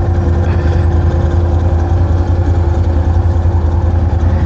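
ATV engine idling steadily close by, a low even running with no revving.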